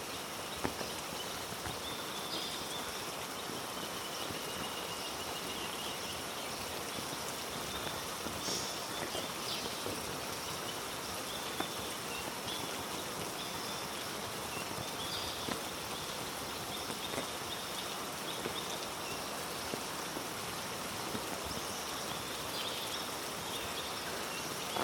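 Heavy rain falling steadily through rainforest, with scattered close drips and splats, and short high calls recurring over it.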